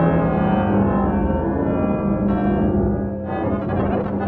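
Live electronic music: layered, sustained tones that move to new chords about two and three seconds in.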